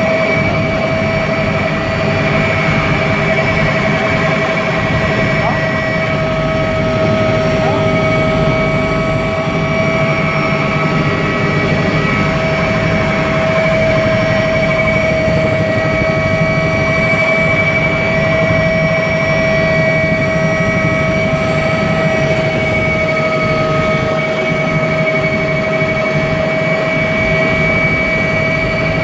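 Mil Mi-2 helicopter's twin turboshaft engines running steadily, a high turbine whine over the rush of the engines and rotor.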